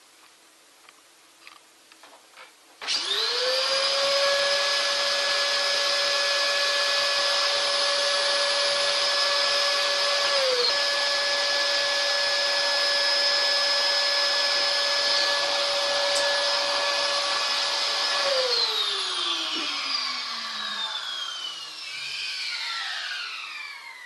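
Vacuum cleaner motor switched on about three seconds in, starting suddenly into a steady loud whine over a rush of air. It runs evenly, with a brief dip in pitch partway through, then is switched off and winds down, its whine falling in pitch over the last several seconds.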